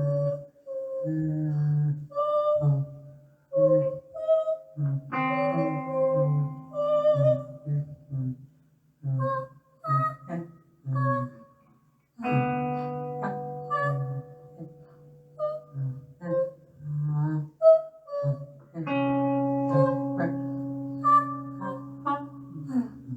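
Music: guitar through effects playing short plucked notes with gaps between them, and longer held chords ringing out about five, twelve and nineteen seconds in.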